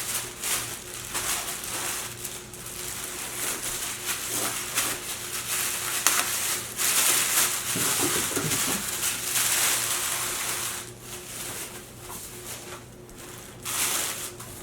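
Speaker packaging being handled: repeated rustling, crinkling and scraping as a speaker is unwrapped, with a faint steady hum underneath.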